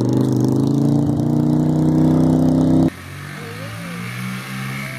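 Harley-Davidson V-twin motorcycle engine revving hard, its pitch climbing and then held high. It cuts off abruptly about three seconds in, and a minibike's small engine follows, running steadily and much more quietly.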